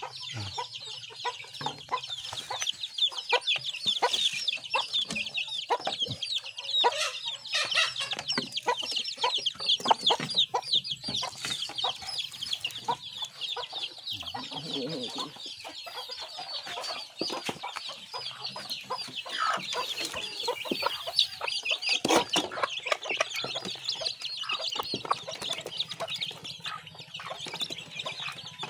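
A brood of chicks peeping constantly in many short, high, falling peeps, with a hen clucking among them and a few scattered knocks.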